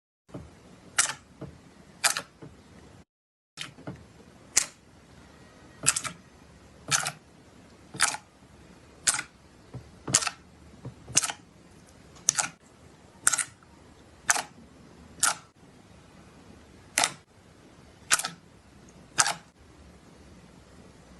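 Slime being worked by hand, giving a sharp, click-like pop about once a second.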